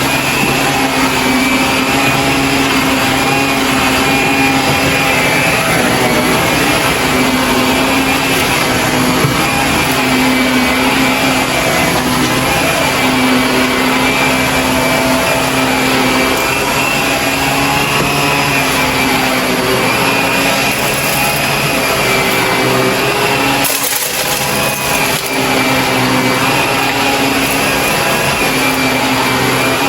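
Shark vacuum cleaner running steadily, its motor hum wavering a little in pitch as it works, with a brief drop in level about three quarters of the way through.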